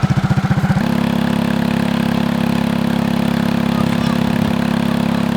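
Small gas engine driving the saw-blade launcher's spinning wheel, cranked up toward full speed: a rapid pulsing beat that turns about a second in into a steady, even drone.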